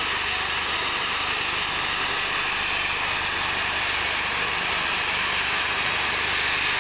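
Steady industrial machinery noise inside a working ferroalloy plant: a constant loud hissing din with a low hum beneath.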